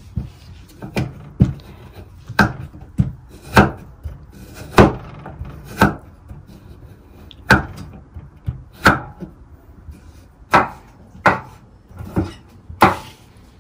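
Kitchen knife dicing carrots on a cutting board: slow, uneven knocks of the blade striking the board, with a longer pause about six seconds in.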